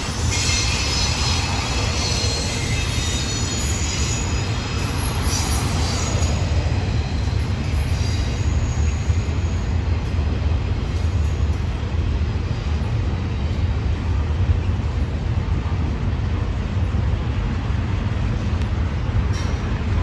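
Double-stack intermodal well cars rolling past with a steady low rumble. Several high-pitched wheel squeals sound over the first several seconds and fade out about eight seconds in.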